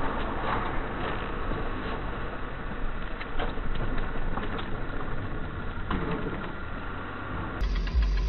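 Car running with steady engine and road noise, heard through a dashcam, with a few light knocks. Near the end it cuts to music with a heavy bass beat.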